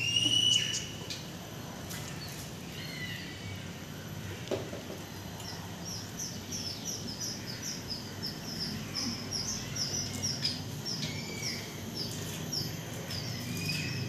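Oriental magpie-robin (kacer) chick giving a run of short, high begging chirps, about two a second, from about five seconds in; a few scattered higher calls come before. The chick is hungry and calling to be fed.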